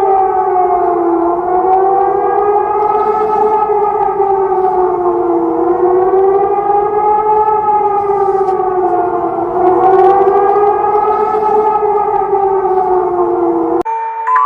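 Civil defense warning siren wailing, its pitch rising and falling slowly about once every four seconds, with two tones sounding together. It cuts off just before the end.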